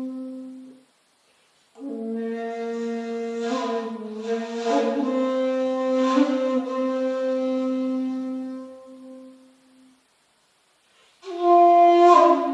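Handmade 2.8 jinashi shakuhachi playing slow honkyoku. Long held notes with breathy, windy accents come in phrases: a held note ends about a second in, a long phrase runs from about two seconds to about ten and fades away, and a loud phrase with a strong breath attack starts near the end.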